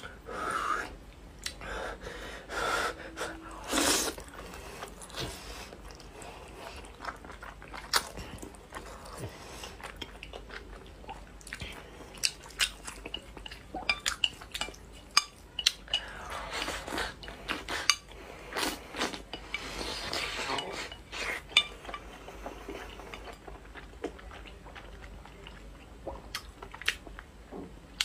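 Close-up eating sounds: spicy instant ramen noodles slurped and chewed, with wooden chopsticks clicking against the bowl. The slurps come in short swells near the start and again past the middle, with scattered sharp clicks in between.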